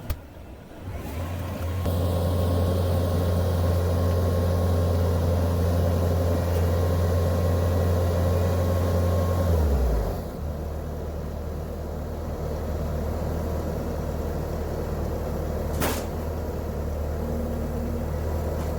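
Bobcat T650 compact track loader's diesel engine revving up about a second in and running at high speed with a thin whine over it, then dropping back to a lower speed about ten seconds in. A single sharp click comes near the end.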